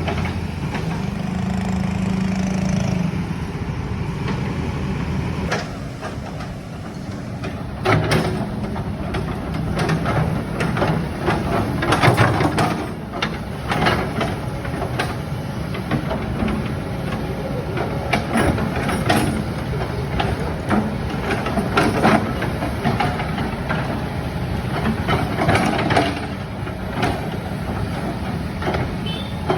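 Kobelco hydraulic excavator's diesel engine running steadily. From about eight seconds in, repeated knocks and clatter sound over it.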